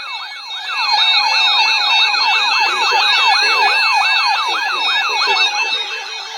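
Emergency alert broadcast attention signal: a loud siren-like tone sweeping up again and again, about four to five times a second, over steady higher tones, sounding ahead of a severe thunderstorm warning.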